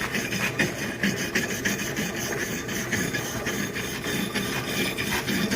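A brush scrubbing the rusty steel head of an axe in rapid, irregular rasping strokes, trying to clean off the rust, with little of it coming away.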